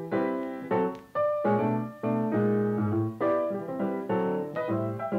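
Background piano music, chords and notes struck one after another.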